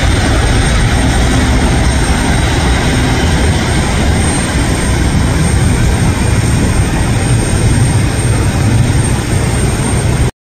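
Twin jet engines of a Delta widebody airliner at takeoff thrust as it lifts off and climbs away: a loud, steady jet noise with a deep rumble underneath. The sound cuts off abruptly at the very end.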